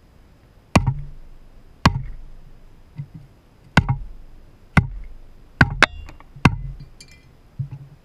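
A wooden baton striking the spine of a Cavallini Explorer knife, driving the blade into an iron pipe laid on a wooden beam: about seven sharp knocks roughly a second apart, a few followed by a brief metallic ring.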